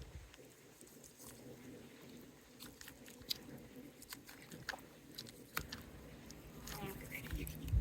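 Knife cutting through a raw chicken wing at the joint: faint scattered crunches and clicks, with a louder low thump near the end.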